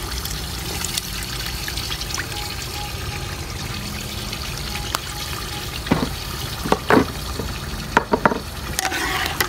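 Chicken stock trickling through a wire-mesh strainer into a steel pot of fried tomato sauce, a steady pouring, dribbling sound. From about six seconds in come several sharp knocks.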